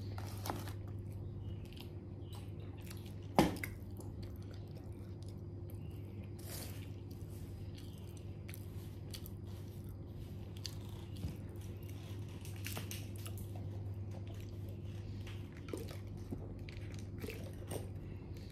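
A person chewing a mouthful of crunchy fried-chicken burger: scattered soft crunches and mouth clicks, one sharper click about three and a half seconds in, over a steady low hum.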